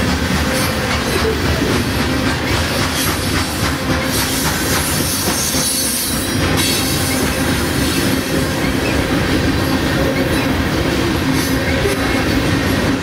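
Coal hopper cars rolling past at speed: steady wheel-on-rail noise and rattle with a faint steady hum, and a brighter hiss for a couple of seconds around the middle.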